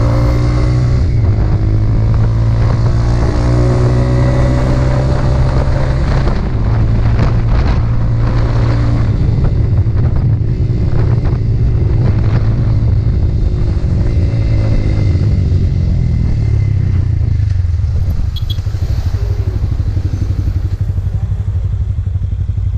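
Motorcycle engine running on the road, its pitch rising and falling as the revs change. About three-quarters of the way through it settles to a lower, quieter note.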